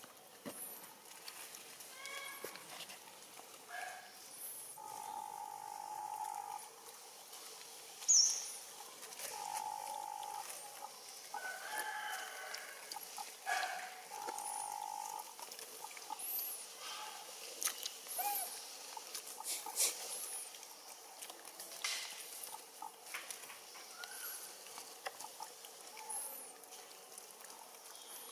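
Animal calls: several flat, whistle-like calls of about a second each, with high chirps scattered throughout and one sharp, short squeak about eight seconds in, the loudest sound.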